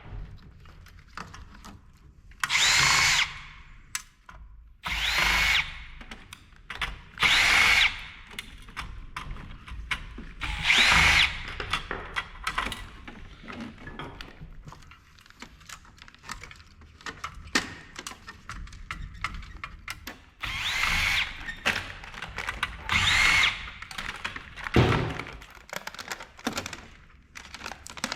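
Cordless drill-driver run in about six short bursts of roughly a second each, its motor whine rising and falling in each, as it backs out screws from an electronic monitor's housing. Between the bursts come small clicks and knocks of screws and metal parts being handled.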